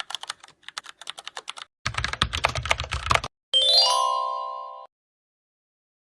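Typing sound effect, rapid keyboard clicks that grow denser and fuller about two seconds in, followed by a bright chime that rings out for just over a second and then stops.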